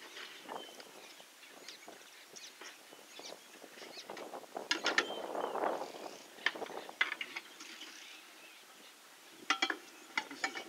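Outdoor bush ambience with scattered short chirps and clicks, coming in two quick clusters about five seconds in and again near the end, and a brief louder rustle between them.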